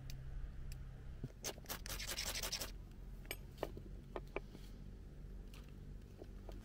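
Quick scraping strokes of a ferro rod and its striker worked over dry bark tinder in an attempt to light a fire: a fast run of strokes about a second and a half in, then a few single scrapes and clicks.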